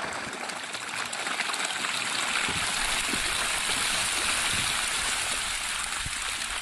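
Steady splashing and churning of water as a mass of caged fish thrash at the surface, scrambling for feed scattered onto the water.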